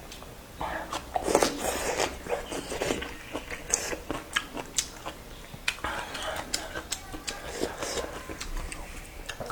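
Close eating sounds: a person chewing and biting noodles with dried radish, with many short wet mouth clicks and smacks at irregular intervals.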